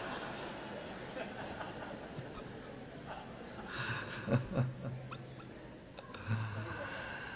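Audience laughing, with a man chuckling close to the microphone around four seconds in and again near six seconds.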